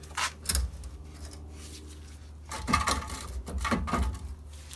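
Metal clinking and rattling as a loosened wheel hub bearing assembly is wiggled in its steering knuckle: two sharp clinks, then a run of knocks and clanks about two and a half seconds in.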